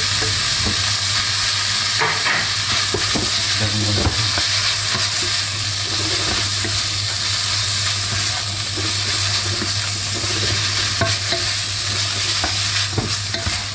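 Ground beef and basil stir-fry sizzling in a stone-coated nonstick frying pan, stirred with a wooden spatula: a steady hiss of frying with irregular scrapes and taps of the spatula against the pan as the leaves are folded into the meat.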